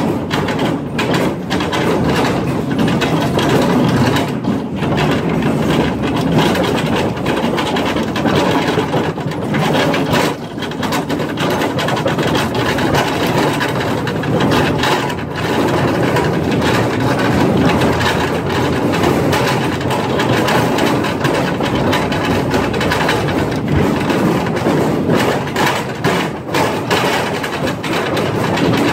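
Mine train cars rattling and rumbling along the rails inside a rock tunnel, a dense, unbroken clatter of wheels on track on a bumpy ride.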